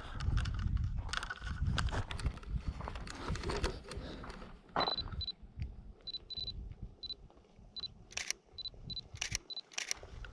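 Bicycle tyres rolling on a gravel road, with wind rumble on the microphone. About halfway through, a hand-held Canon camera beeps repeatedly in short high beeps as its autofocus locks onto approaching riders, with a few shutter clicks near the end.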